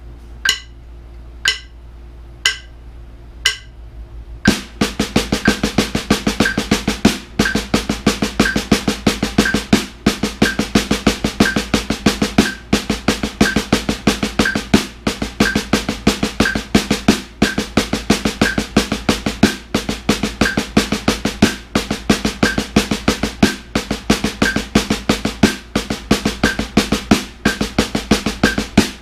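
Wooden drumsticks playing a continuous stream of double-stroke triplets on a rubber practice pad set on a snare drum, with regular louder accents marking groupings of seven and later five. Four evenly spaced clicks about a second apart come before the playing starts, about four and a half seconds in.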